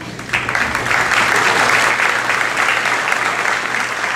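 Audience applauding in a large hall. The clapping starts suddenly just after the announcement ends and holds steady and full.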